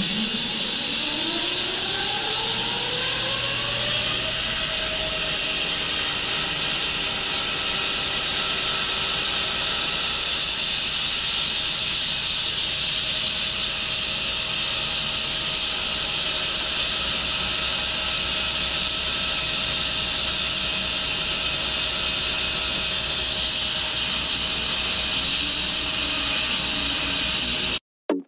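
A 6 ft bandsaw mill sawing through a willow log. The pitch rises over the first four seconds or so as the machine speeds up, then the blade runs steadily through the wood with a loud, even hiss. The sound cuts off abruptly near the end.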